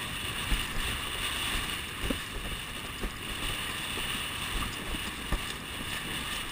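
Windsurf board sailing fast over choppy water: a steady rush of water and wind buffeting the microphone, with a few short low thumps as the board slaps the chop.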